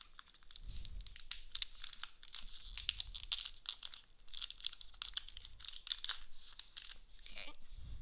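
Foil wrapper of a Pokémon card booster pack being torn open and crumpled by hand: a dense run of sharp crackles and rustles.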